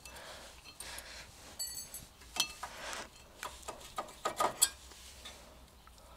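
Light clicks and scrapes of a brake pad and its small retaining spring clips being worked out of a Mazda MX-5's disc brake caliper by hand, with a brief metallic ring early on and a few sharper clicks bunched between about two and four and a half seconds in.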